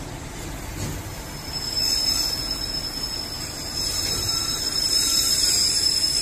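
Heavy freight train rolling past: a pair of electric locomotives followed by flat wagons loaded with steel coils, with a steady rumble of wheels on rail. About a second and a half in it grows louder and a steady high-pitched whine and hiss come in.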